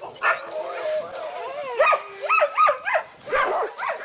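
Several young sled dogs yelping and howling together while being harnessed, a chorus of quick high calls that swoop up and down in pitch. It grows denser and louder about two seconds in, the excited noise of a team waiting to pull.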